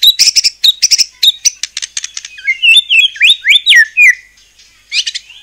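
White-rumped shama (murai batu) in full song. It gives a fast run of sharp, high chipping notes, then a few loud whistles that slide down in pitch, and a short burst of notes near the end.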